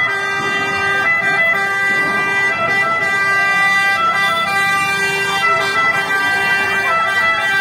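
Fire engine siren sounding steadily, several held tones together.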